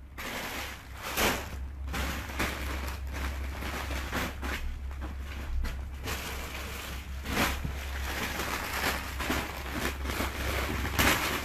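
Clothes being rummaged through and handled: an uneven rustling with frequent small knocks, over a steady low hum.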